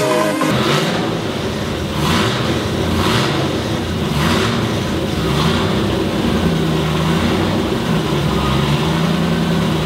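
Land Rover Series 3's 2.25-litre four-cylinder petrol engine running steadily on its freshly rebuilt carburettor.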